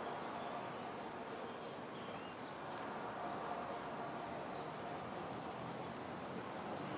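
Steady outdoor background noise with a few faint, high bird chirps, the clearest near the end.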